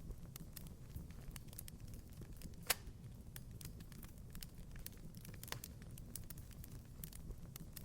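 Wood fire crackling in a fireplace: a steady low rumble of the flames with frequent small snaps and pops, one louder pop a little under three seconds in and another about halfway through.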